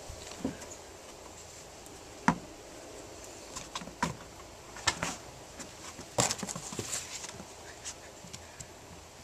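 Scattered taps and knocks of a kitten pouncing and batting at a string, irregular, with one sharp knock a bit over two seconds in and a quick flurry of taps around six seconds.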